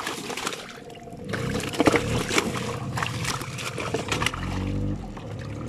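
A boat's motor running low and steady, with scattered knocks and clicks over it.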